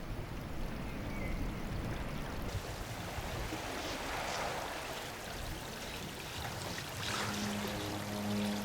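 Steady rush of running water, like a stream or river. About seven seconds in, music with held tones fades in over it.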